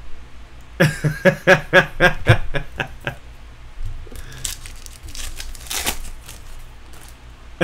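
A man laughs in a string of short, even 'ha' pulses, about four a second, for a couple of seconds. Then a foil card pack's wrapper crinkles and tears as it is pulled open.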